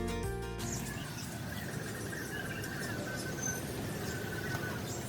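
Background music stops in the first second, giving way to a steady hum with small birds chirping and trilling faintly.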